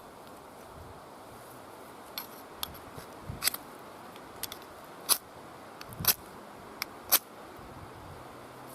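Folding bucksaw scraping wood to make fine tinder: about seven short, sharp strokes spread irregularly over five seconds, the loudest near the end.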